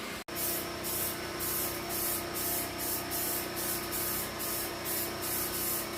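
Aerosol can of spray primer hissing as the frame is coated, in a quick pulsing rhythm of about three puffs a second.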